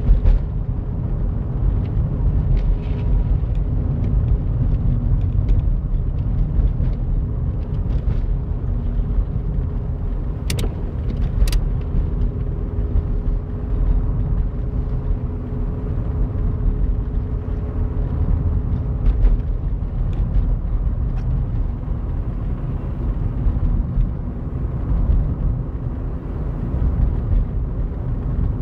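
Steady low rumble of a car's engine and tyres on a wet road, heard from inside the moving car, with a faint steady engine hum. Two sharp clicks about a second apart near the middle.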